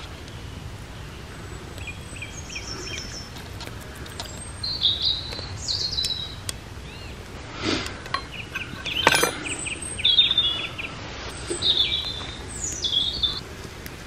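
Songbirds singing: repeated high chirps and short trilled phrases over a steady outdoor background, with a couple of sharp knocks about two-thirds of the way through.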